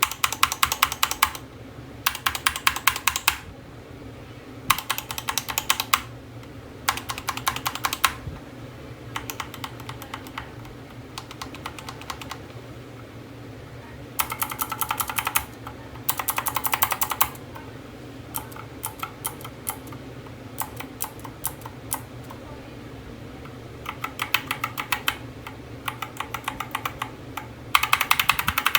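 Mechanical keyboard with Gateron switches being typed on in short bursts of rapid keystrokes, each burst lasting about a second, with pauses between them.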